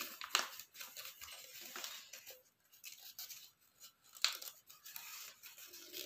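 Faint rustling and crinkling of a square of origami paper being folded and creased by hand, with a few sharper crackles, the clearest about a third of a second in and about four seconds in.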